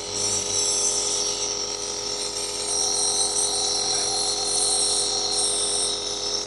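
Compressor nebulizer running steadily: a constant motor buzz with a steady hiss of air driving the medicine mist.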